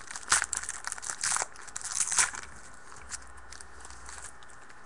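Foil trading-card pack wrapper crinkling and tearing as it is ripped open by hand, loudest for about the first two seconds, then dying down to faint rustles.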